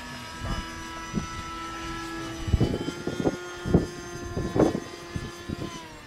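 Radio-controlled model airplane flying overhead, its motor and propeller giving a steady whine that dips slightly in pitch near the end. Gusts of wind buffet the microphone with several loud low thumps, the strongest in the middle.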